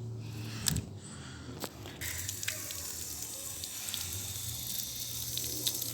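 Water running and trickling through a small toy waterfall, starting suddenly about two seconds in after two short knocks, then flowing steadily.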